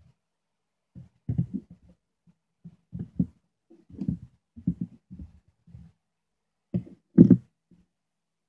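Handling noise: irregular soft knocks and bumps of hands and needle-nose pliers working on a multimeter's battery-clip wiring on a wooden desk, the loudest pair of knocks about seven seconds in.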